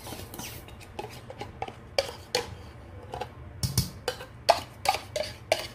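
Metal spoon clinking and scraping against a stainless steel mixing bowl as batter is stirred: a string of irregular clinks with a short metallic ring, coming thicker and louder in the second half.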